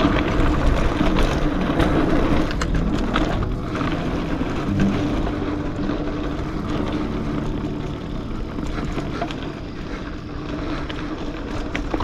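A gravel bike's tyres rolling fast over packed dirt, with wind rushing over the action camera's microphone. The bike gives sharp knocks and rattles over bumps in the first few seconds, and the noise eases a little after that.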